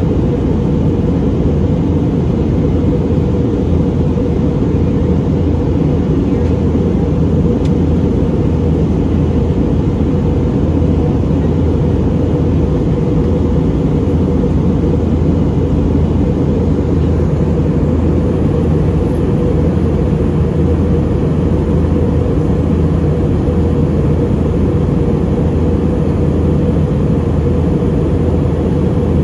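Airbus A320neo cabin noise in flight: the engines and the airflow over the fuselage make a steady, even drone, heaviest in the low range, without change.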